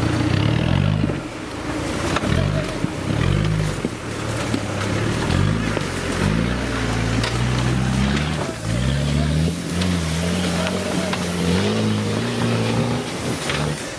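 Off-road 4x4's engine revving up and down over and over, short rising bursts of throttle as it works through a trial obstacle. A faint high whine joins in for a few seconds near the end.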